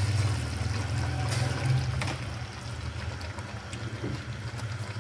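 Sugar syrup boiling around freshly added boiled raw-mango strips in a pot, a steady bubbling hiss over a low steady hum, with a few faint clicks. The syrup has been cooked to one-thread consistency.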